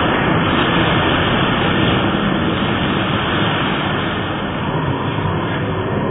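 Swimmer's kicking and stroking splashing the water, a steady rushing wash of sound echoing in an indoor pool hall.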